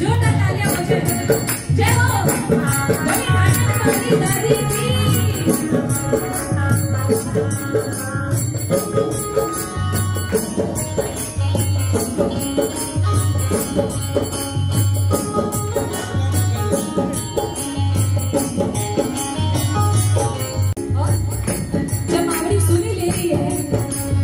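Live devotional bhajan music: keyboard and drums keep a steady, repeating low beat under fast, even jingling from hand percussion. A voice sings over it in parts.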